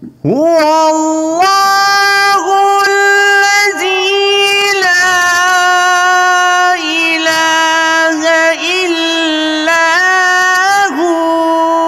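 A man's voice reciting the Quran in melodic tajweed style, holding one long, high, ornamented note for about eleven seconds, with brief dips and turns in pitch along the way.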